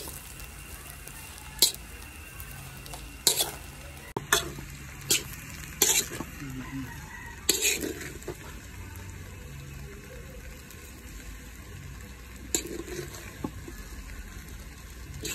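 Metal spatula scraping and clanking against a large metal wok as fried rice is stirred and turned, over a steady frying sizzle. The sharp clanks come in a run through the first eight seconds, then once more near the end.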